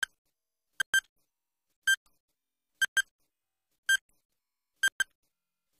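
Electronic countdown timer beeping once a second, each tick a short, high-pitched beep, some ticks sounding as a quick double beep, with silence between.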